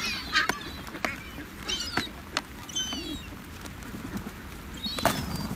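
A plastic pet carrier's latches and lid clicking and knocking as it is opened by hand, the loudest knock near the end. Short, high bird calls sound several times in between.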